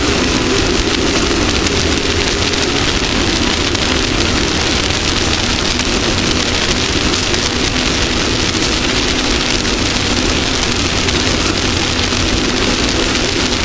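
Off-road race vehicle's engine running steadily at speed under a loud, even hiss of wind and rushing dirt, with no let-up in pace.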